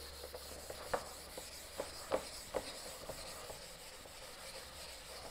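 Whiteboard eraser rubbing across a whiteboard, a faint steady swishing, with a few light knocks in the first three seconds.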